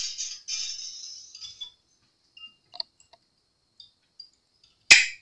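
Steel guitar string being unwound and pulled off the tuning pegs of an acoustic guitar: a scratchy hiss of wire sliding through the tuner post that fades over the first second and a half, then a few light metal ticks and one sharp click near the end.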